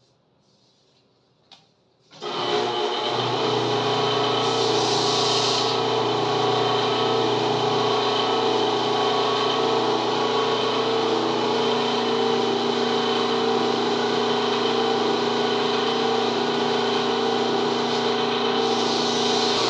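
Metal lathe switched on about two seconds in, after a click, then running steadily with a whine from its motor and gears. A hiss of sandpaper against the spinning cue comes in briefly early on and again near the end.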